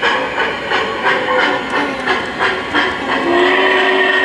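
A model N&W Class J steam locomotive's onboard sound system chuffing steadily, about three chuffs a second, as it runs; a little over three seconds in, its steam whistle starts and is held.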